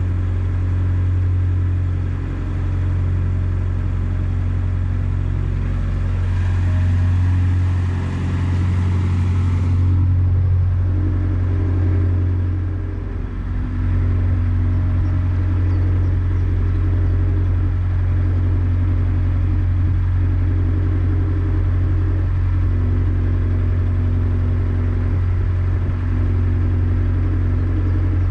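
Narrowboat's inboard diesel engine running steadily under way, a low even drone; a brighter hiss joins it for a few seconds about six seconds in, and the engine note dips briefly after about thirteen seconds.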